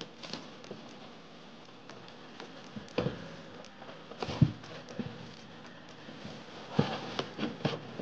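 Soft thumps and rustles of a foam seat cushion being set onto a carpeted bench seat and pressed down by hand, with a few footsteps on the floor. Irregular handling knocks, the loudest about three and four and a half seconds in.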